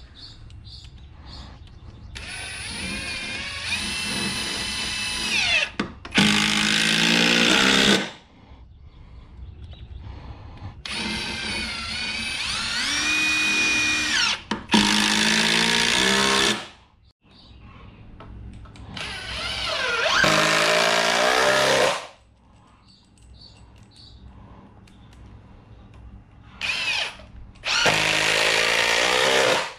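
A Ryobi cordless drill/driver drives screws into pressure-treated 2x6 lumber in four long runs. Each run is a motor whine that rises in pitch, then turns louder and harsher as the screw bites and seats. There is one short burst near the end.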